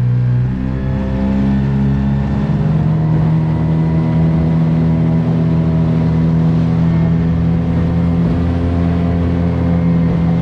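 Small boat's motor under way. It revs up over the first couple of seconds, then runs steadily at higher speed as the boat heads out across flat water.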